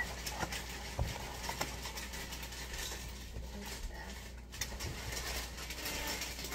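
A few light knocks and clatter of kitchen things on a countertop, the clearest about a second in, over a low steady room hum.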